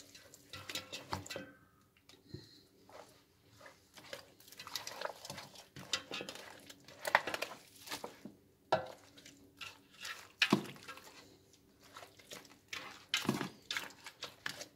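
Hands rubbing marinade into raw goat meat in an enamel roasting pan: irregular wet squelching and slapping of the meat, with a few sharper knocks against the pan.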